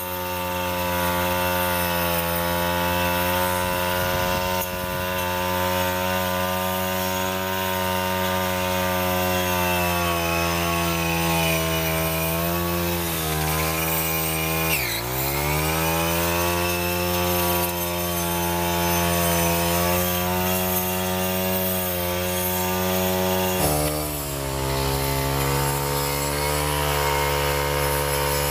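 Petrol brush cutter running at high revs while cutting tall grass. The engine pitch dips sharply about halfway through, then climbs back.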